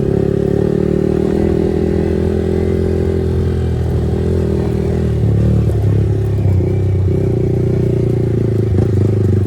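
Yamaha R15 V4's single-cylinder engine breathing through an aftermarket full-system exhaust, running steadily on the move; the engine note dips and settles at a new pitch about halfway through.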